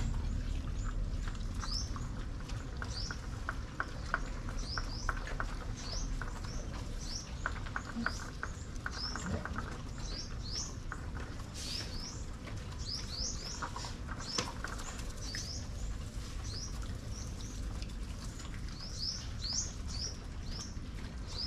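Small birds chirping over and over, short quick upward chirps throughout. In the first half they are joined by runs of rapid small clicks.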